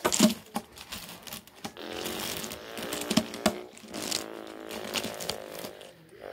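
Small hard plastic blocks clicking and clattering as they are handled and set down in a row on carpet, with irregular taps throughout and a sharp cluster right at the start. A steady pitched hum runs under the taps through the middle and latter part.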